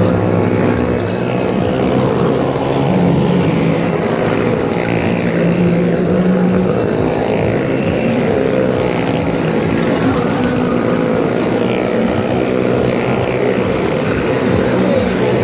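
Car and motorcycle engines running hard and steady as the vehicles circle the vertical wooden wall of a well of death, the engine notes rising and falling a little as they go round.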